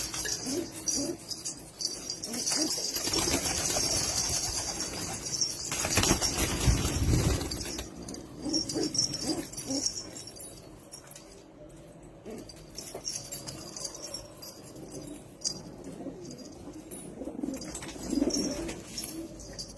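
Domestic fancy pigeons cooing repeatedly in a loft. Wings flap in a loud rustling spell from about three to eight seconds in.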